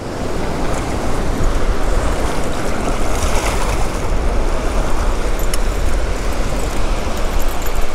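Ocean surf washing through the shallows, a steady rushing noise with a strong low rumble underneath.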